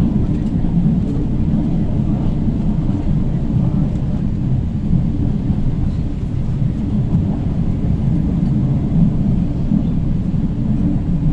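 Steady low rumble of an LRT Line 1 light-rail train running along the line, heard from inside the passenger car.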